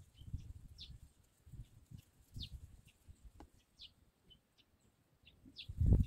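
A bird repeating a short, high, falling chirp about every second and a half over uneven low rumbling, with a louder low thump near the end.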